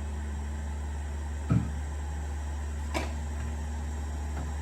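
A steady low hum from bench equipment, with a dull knock about a second and a half in and a sharp click about three seconds in, the sort made by a tool being handled or set down on the workbench.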